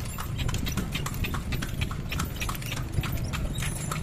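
Hooves of a horse pulling a kalesa, a horse-drawn carriage, clip-clopping on a paved street: a steady run of sharp clops, about three to four a second, over a low steady rumble.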